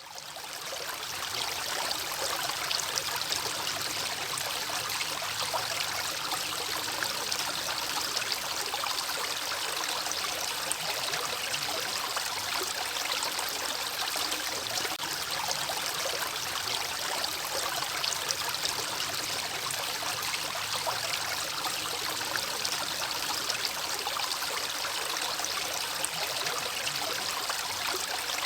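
River water flowing and babbling steadily over stones, fading in at the start.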